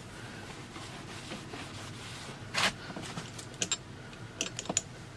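Hands handling an old sewing machine: a brief scrape about two and a half seconds in, then a handful of sharp little clicks and taps.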